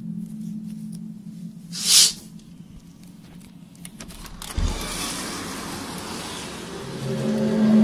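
An unexplained low droning hum with overtones, of the kind posted as the 2012 'strange apocalypse sounds'. It fades, with a brief loud hiss about 2 seconds in and a thump about halfway, then a noisy rush, and the hum swells back in near the end.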